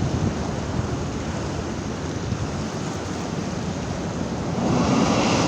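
High surf breaking on the shore, a continuous rushing wash of waves with wind on the microphone, swelling louder near the end as another wave surges in.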